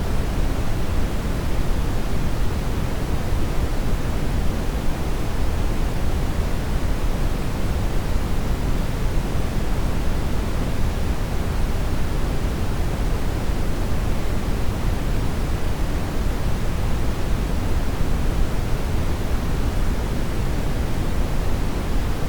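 Steady synthetic brown noise: an even, unbroken hiss weighted toward the deep end, with no changes or events.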